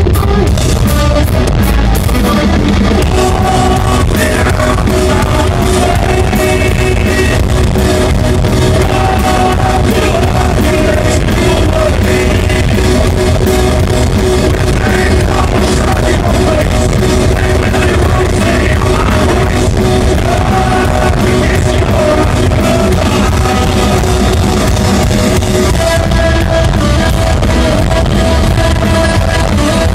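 Stoner-metal band playing live at full volume, heard from the audience: distorted electric guitars, bass and a drum kit, with singing.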